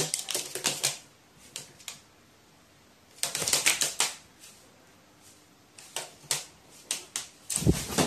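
An agitated crow thrashing about on a tabletop: a string of sharp clicks and taps as it strikes hard surfaces, with a dense flurry about three seconds in and a low thump near the end.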